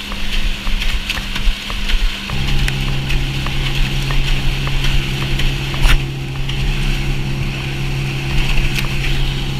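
Wake boat's inboard engine running steadily under way, with water rushing past. About two seconds in, the engine note drops to a lower, stronger hum, and a single sharp knock comes about six seconds in.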